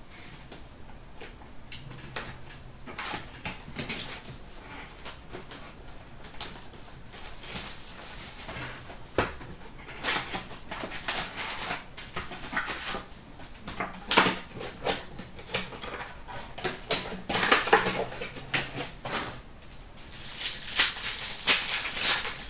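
O-Pee-Chee Platinum hockey card pack wrappers being slit, torn open and crumpled by hand, with cards slid out and shuffled: a run of crackles and rustles, loudest near the end.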